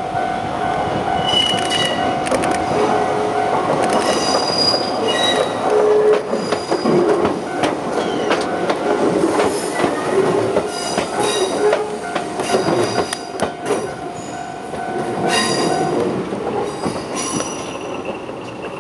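Shizuoka Railway 1000 series electric train passing close by through the crossover, its wheels squealing in short high bursts and clicking over the rail joints and points. A steady whine runs under it, and the sound fades as the last car goes by near the end.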